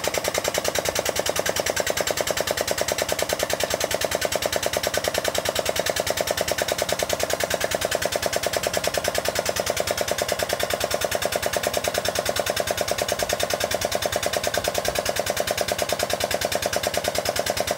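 Power hammer running, striking sheet metal in a rapid, steady train of blows.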